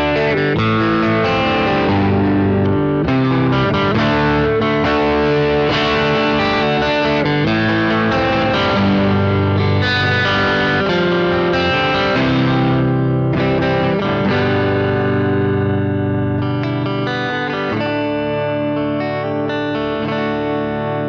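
1981 Fender Bullet Deluxe electric guitar played through a BOSS GT-1 effects pedal, recorded direct with no amp: a run of picked chords and riffs, settling into a chord left ringing near the end.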